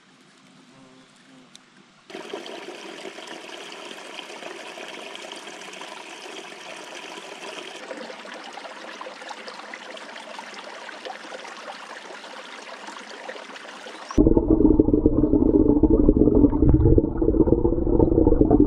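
Mountain creek running over rocks: a steady rush of water starting about two seconds in, which turns abruptly much louder and deeper near the end.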